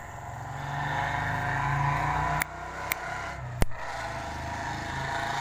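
An engine running, growing louder over the first two seconds, with three sharp clicks about two and a half, three and three and a half seconds in.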